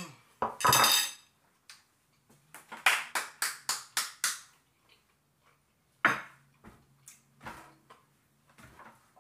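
A fork clatters against a dinner plate, then hands clap about six times in quick succession. Two more single knocks follow later.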